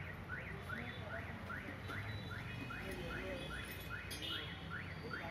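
A high chirp repeating steadily about two to three times a second, each chirp rising and then falling in pitch, over a low background rumble.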